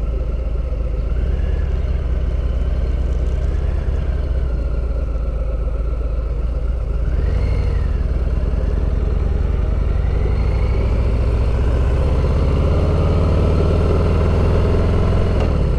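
Harley-Davidson V-twin engine and exhaust running while the motorcycle is ridden, a steady low rumble that grows a little louder in the second half.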